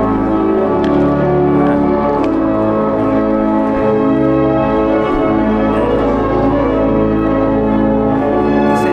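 Processional music on the church organ: slow, sustained chords that change about once a second.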